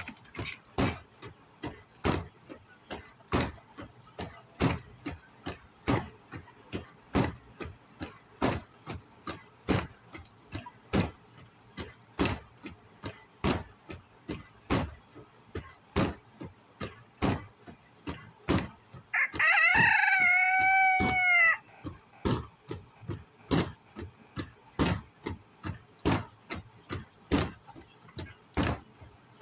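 A rooster crows once, a single call of about two seconds that rises and falls, about two-thirds of the way through. Under it runs a steady series of sharp knocks, about two a second.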